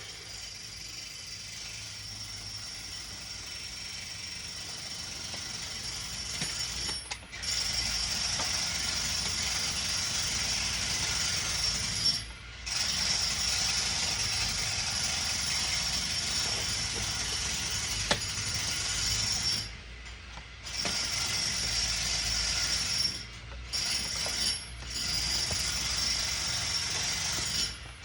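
Angle grinder with a cutting disc running and scoring through a thick plexiglass sheet: a steady high whine over a hiss. It gets louder about seven seconds in and cuts out briefly five times as the trigger is let off between passes.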